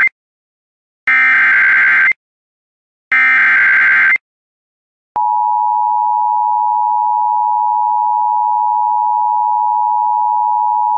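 Emergency Alert System tones: the end of one SAME header burst, then two more one-second bursts of digital data tones a second apart, the header sent three times in all. About five seconds in, the steady two-tone EAS attention signal starts and holds.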